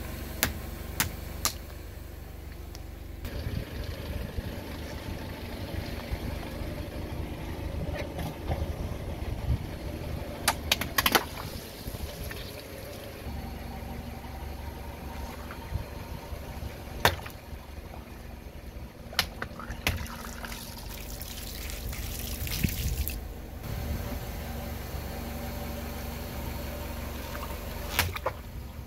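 A car engine running low and steady while the tyre rolls over objects, with sharp cracks of them breaking under the wheel spread through, and liquid spilling. A hiss rises a little past twenty seconds in and cuts off suddenly.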